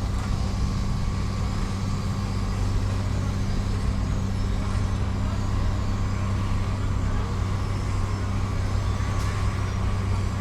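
Heavy construction machine engine running steadily at one constant speed: a low drone with a faint higher whine above it.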